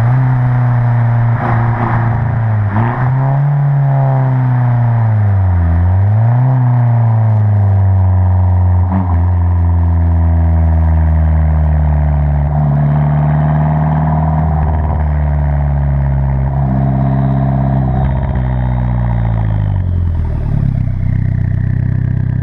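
Abarth 500 esseesse's turbocharged 1.4-litre four-cylinder, fitted with a Garrett 1446 turbo and an aftermarket exhaust, heard from inside the car. The revs rise and fall several times in the first seconds, then hold fairly steady with a few dips, and drop away near the end.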